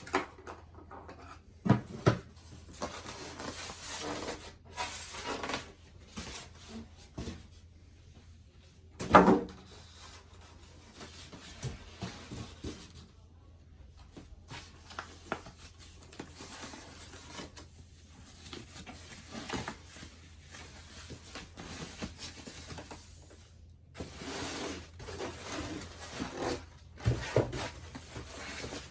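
Handling noises from unboxing a monitor: packaging rubbing and rustling, with scattered knocks and a loud thump about nine seconds in.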